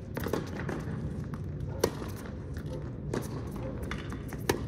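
Tennis rally: sharp pops of rackets striking the ball. The two loudest hits come just under two seconds in and near the end, with fainter hits and bounces from across the court between them.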